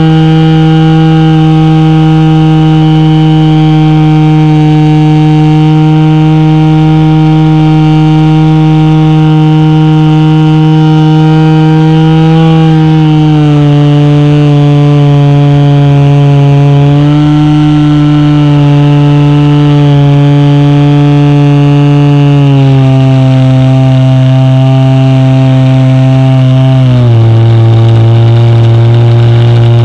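Zenoah 26cc two-stroke gas engine of an RC J-3 Cub floatplane running at high speed, heard loud and close from a camera mounted on the plane. Its pitch holds steady, then steps down three times: about twelve seconds in, about twenty-two seconds in, and more sharply near the end.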